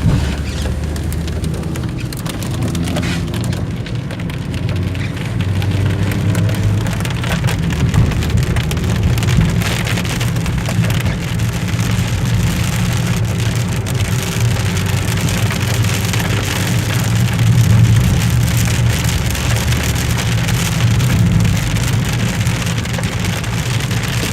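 Heavy rain falling and pattering on surfaces in a continuous dense hiss of drops, with a steady low rumble underneath.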